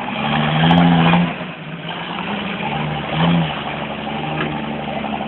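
Engine of a heavily loaded off-road 4x4 working up a muddy track, revving in surges that are loudest in the first second and again briefly about three seconds in, then running more steadily.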